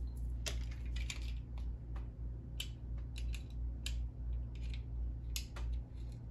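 Irregular small clicks and scratchy scrapes as hot glue is picked and pried off the tip of a black agate crystal tower, over a steady low hum.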